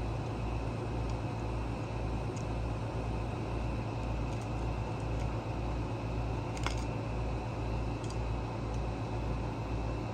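Steady low machine hum, pulsing about twice a second, with a faint click about two-thirds of the way through.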